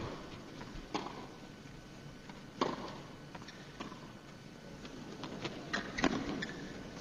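A tennis rally: racquets strike the ball back and forth, sharp single hits every one to two seconds over a quiet background.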